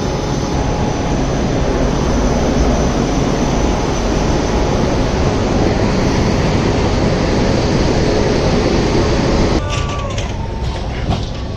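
Steady loud running noise of a WAP-7 electric locomotive standing at the platform, the even rush of its cooling blowers. It cuts off abruptly near the end, leaving quieter sound with a few sharp clicks.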